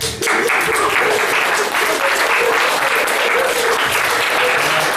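Audience applauding: clapping that breaks out suddenly and holds steady.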